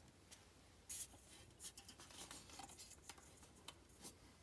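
Near silence with a few faint rustles and ticks of fingers on the paper pages of an open book, the most distinct a short scrape about a second in.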